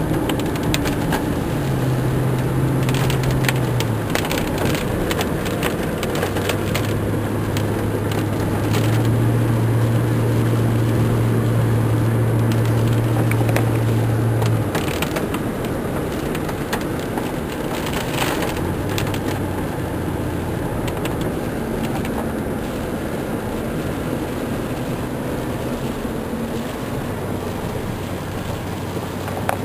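Car engine and road noise heard from inside a moving car, the engine's low hum shifting in pitch several times as the car speeds up and slows, with scattered crackles on top.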